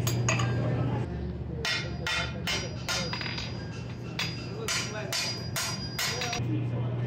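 Blacksmith's hand hammer striking red-hot steel bar stock on an anvil: a regular run of about a dozen blows, roughly two to three a second, each with a bright metallic ring. A low steady hum stops about a second in and returns near the end.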